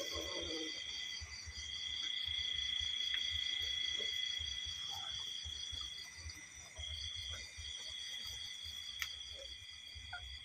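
Insects trilling steadily at a high pitch, one strand pulsing rapidly, with short breaks in the song about a second in and again past the middle.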